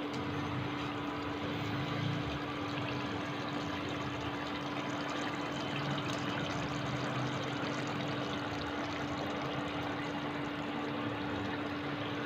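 Chicken curry bubbling steadily in oil in a pan on a medium flame, a constant fine crackle of small bubbles over a steady low hum.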